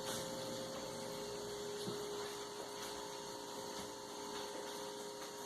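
A steady electrical hum with a faint hiss underneath.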